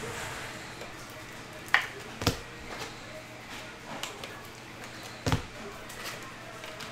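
Trading cards being handled on a tabletop: a few sharp taps and clicks, the loudest about two seconds in and another about five seconds in, over a low steady room hum.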